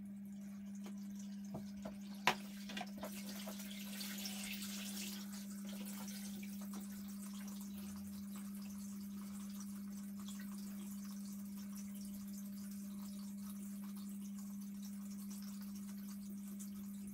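Aquael Ultramax 1000 canister filter running, a steady faint pump hum with a light hiss of water moving through the hoses into the bucket, played back at double speed. A few faint clicks sound in the first three seconds.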